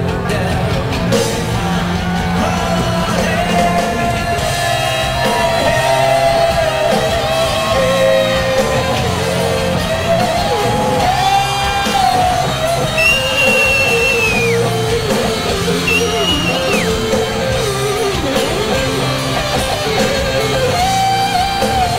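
Live rock band playing, led by an electric guitar solo on a Les Paul-style guitar with bent, held notes over bass and drums. Two high sustained notes come about two-thirds of the way in, each dropping off at the end.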